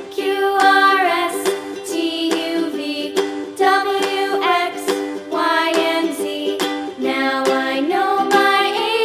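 Cheerful children's background music: a bright melody over a steady, evenly struck plucked rhythm.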